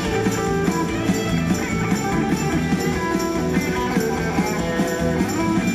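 Live rock-and-roll band playing: electric guitars, electric bass and a drum kit keeping a steady, driving beat.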